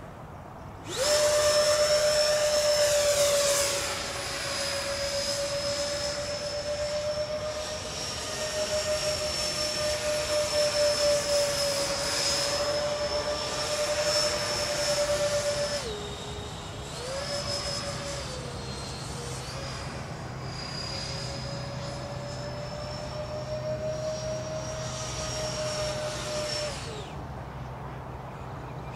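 Twin electric ducted fans of a Freewing MiG-29 RC jet in flight: a steady high whine. It starts suddenly about a second in and is loudest for the next few seconds, drops in pitch briefly a little past halfway, rises again, and cuts off near the end.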